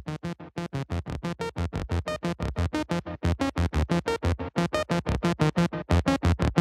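Background electronic music: a fast, even run of short synthesizer notes, about six or seven a second, growing louder.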